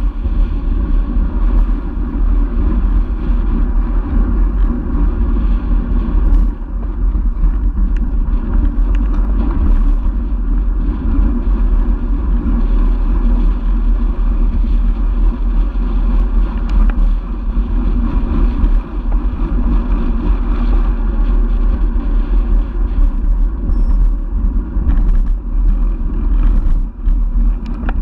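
Wind buffeting and road rumble picked up by a handlebar-mounted camera on a moving road bike, with a few faint knocks from bumps in the asphalt.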